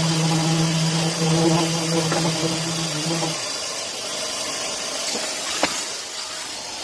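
Electric power sander motor running with a steady hum, then switching off about halfway through. After that there is a quieter hiss and a single sharp click near the end.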